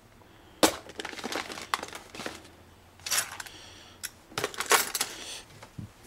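Small items such as charger cords and pocket tools being dropped and set back into a soft-sided insulated lunch bag: irregular clinks, clunks and rustles, with a sharp knock about half a second in and a busier cluster near the end.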